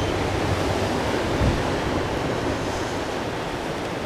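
Pacific surf washing against a rocky shore, a steady noise with no distinct breaks, with some wind on the microphone.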